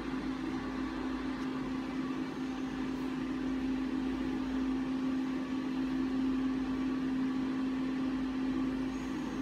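A steady machine hum with one constant low tone and a faint hiss above it, unchanging throughout.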